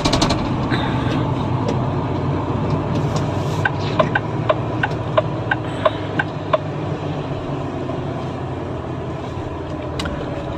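Inside the cab of a moving Volvo FH truck: the engine and road noise drone steadily. About three and a half seconds in, a run of short, evenly spaced ticks sounds for about three seconds.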